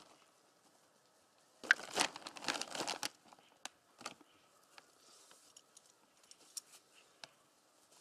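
Plastic bags crinkling loudly for about a second and a half as they are handled, followed by scattered faint rustles and ticks.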